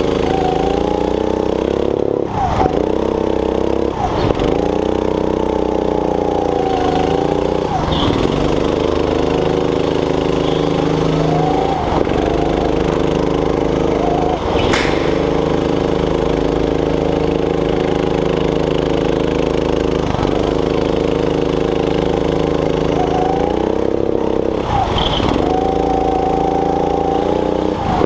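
Go-kart engine running hard through a lap, heard from the driver's seat, its pitch dropping briefly every few seconds as the throttle is lifted for corners and climbing again on the straights. A single sharp knock about halfway through.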